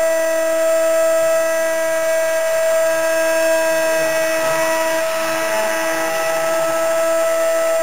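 CNC router spindle running with a steady high whine over a hiss of noise.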